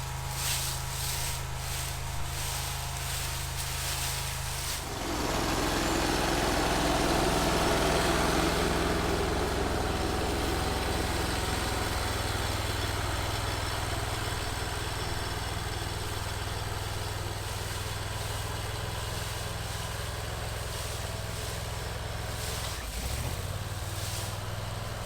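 Vermeer SC362 stump grinder's engine running steadily. From about five seconds in it gets louder and noisier, as with the cutter wheel chewing into a stump. Near the end the engine pitch drops briefly and picks up again.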